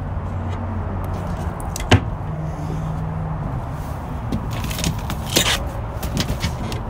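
Fiberglass hatch lids and doors on a boat being handled, with a sharp knock about two seconds in and a few more clicks and knocks later, over a steady low hum.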